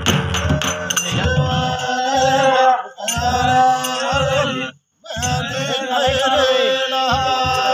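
Drumming on large lattice-wrapped drums stops about a second in, and a group of men take up a devotional chant, sung in unison. The singing breaks off briefly twice, once with a moment of total silence, before continuing over a soft beat.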